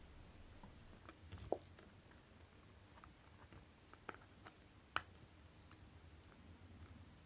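Near silence broken by a few faint, sharp clicks of steel tweezers against the small metal parts of a watch chronograph module; the loudest click comes about five seconds in.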